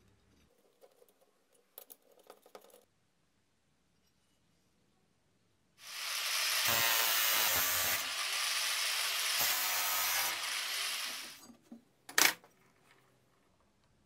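A power tool runs for about six seconds, starting and stopping abruptly. Light metallic clinks come before it, and a single sharp clink follows shortly after it stops.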